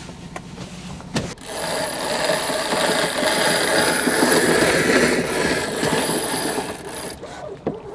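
A single click as a sailboat's rope clutch is opened. Then several seconds of steady, machine-like rushing noise that stops near the end.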